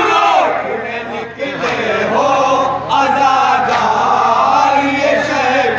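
A group of men chanting together in unison, with a lead male voice among them. The chant runs on loudly, with a brief dip a little over a second in.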